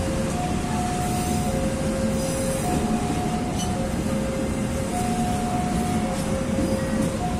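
Passenger train carriages rolling past on the rails, a steady rumble and hiss of the wheels with a few sharp clicks. Over it, a level-crossing warning alarm sounds two tones by turns, a higher and a lower note each held about a second.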